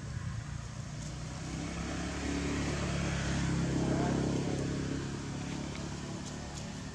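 A motor vehicle's engine passing by. Its low hum grows louder to a peak about four seconds in, then fades.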